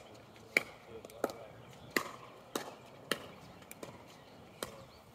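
Pickleball paddles hitting a plastic pickleball: sharp pops roughly every half second to a second, some loud and close, others faint.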